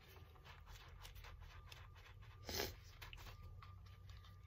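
Near silence with faint rustling and small clicks as a plastic funnel and a balloon holding poly pellets are handled. One short, louder rustle comes about halfway through.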